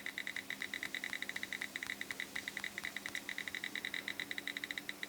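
iPhone date-picker wheel ticking as the year column is spun: a rapid, uneven run of short high clicks, about a dozen a second, slowing and quickening with the flick of the finger.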